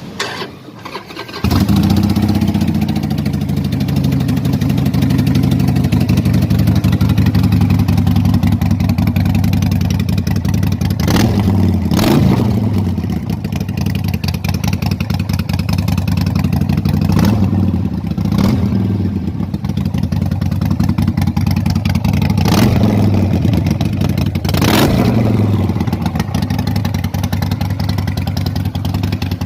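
Harley-Davidson Sportster 1200's air-cooled V-twin engine catching about a second and a half in, then running and revved in several short blips, the revs climbing and falling back each time.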